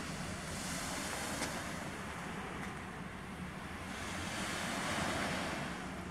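Steady rushing noise of wind and Lake Michigan surf. It swells louder about a second in and again after about four seconds.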